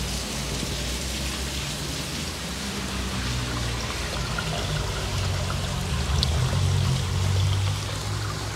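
Heavy rain falling hard, a steady hiss of rain noise, with a low rumble underneath that grows louder through the middle and drops back near the end.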